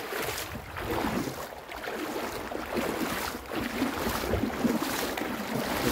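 Mountain river water rushing over a gravel bed, with wind buffeting the microphone in soft gusts.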